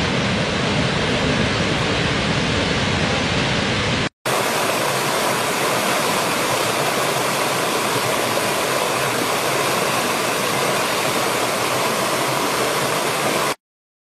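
The heavy, steady rush of a large waterfall with a deep low rumble; after a short break about four seconds in, the brighter, thinner rush of a small stream splashing over rocks, which cuts off suddenly near the end.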